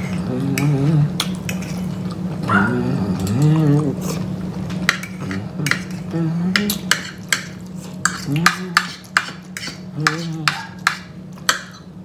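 Forks and knives clicking and scraping against china dinner plates as two people eat, with a quick run of sharp clicks in the second half. Brief low vocal sounds come in between.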